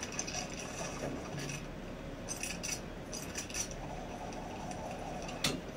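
Faint metallic clicks and clinks: a scatter of short ones in the middle and a single sharper click near the end, over a low steady hum.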